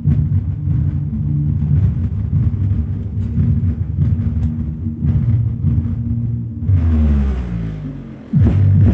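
Bass-heavy music played loud through a high-gain RMS amplifier kit and subwoofer, the low end pulsing in a steady beat. Near the end the bass sweeps downward and fades, then the beat cuts back in suddenly.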